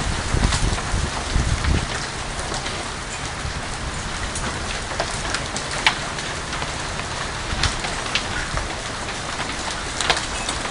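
Hail and rain coming down hard: a steady hiss of rain with scattered sharp clicks of hailstones striking hard surfaces.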